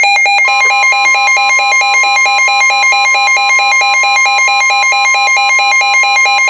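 NOAA Weather Radio receivers sounding their electronic warning alarm, a fast pulsing beep of about five pulses a second, over the broadcast's steady single-pitch Warning Alarm Tone, which joins about half a second in. Together they signal that a warning, here a Severe Thunderstorm Warning, is being issued.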